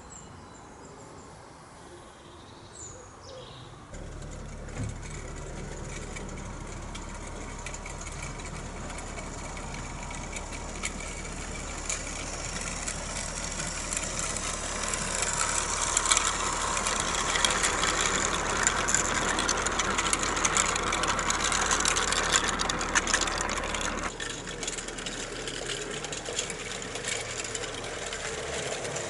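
Battery-powered model locomotive's electric gearhead motor and bevel-gear drive starting up about four seconds in and running with a steady hum. It grows louder, with fine clicking from the wheels on the track, as the loco runs closer, and drops away near the end.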